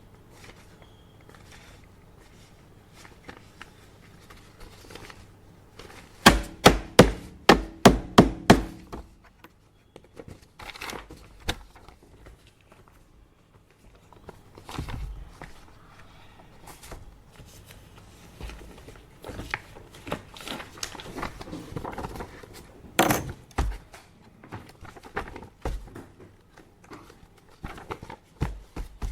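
Office desk handling: about six seconds in, a fast run of about nine sharp knocks on the desk, then scattered clicks, paper rustling and one more loud knock later, over the low steady hum of an air purifier.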